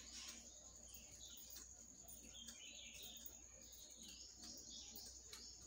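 Faint snipping of scissors cutting through folded cloth, almost at silence, with faint high chirping in the background.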